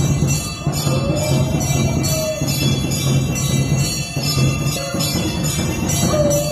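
Temple bells ringing continuously over a steadily beating drum, as at an aarti. A long wavering tone rises and falls over them about a second in and again near the end.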